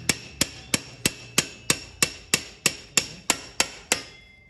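Steady hammer blows on a Royal Enfield Himalayan's rear axle, driving it through the swingarm and wheel hub: about three sharp ringing metal strikes a second, a dozen or so, stopping near the end.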